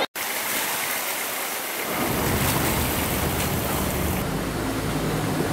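Wind on the microphone and water noise, filmed from the harbour water. About two seconds in, a low rumble comes in, most likely a boat's engine.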